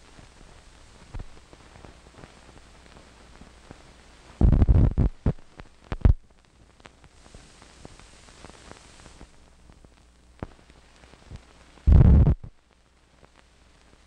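16mm film optical soundtrack running through blank leader: a faint steady hiss and hum with scattered clicks. There is a cluster of loud low thumps about four and a half seconds in, a sharp one at about six seconds, and a longer thump near twelve seconds.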